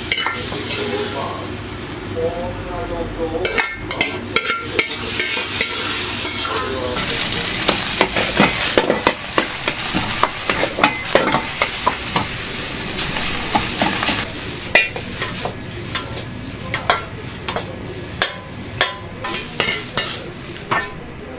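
Fried rice frying in a wok over a gas burner: a steady sizzle, loudest midway, with repeated scrapes and clanks of a metal ladle against the wok as the rice is stirred and tossed.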